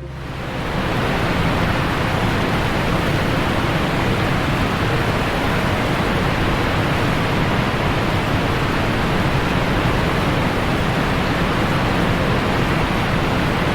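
Roar of a large waterfall: a steady, dense rush of falling water that fades in over the first second and then holds even.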